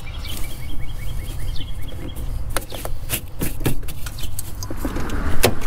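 A cloth rag wiping up spilled transmission fluid around the dipstick tube in a car's engine bay, with scattered sharp clicks, over a steady low rumble. A run of quick high ticks sounds in the first two seconds.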